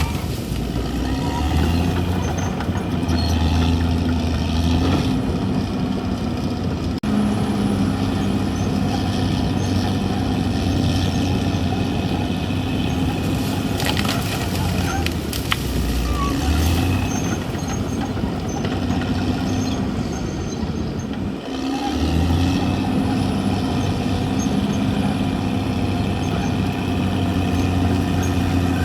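CAT D6R XL bulldozer's diesel engine running under load, its note dipping briefly a little past halfway and then picking back up, with a few short clanks around the middle.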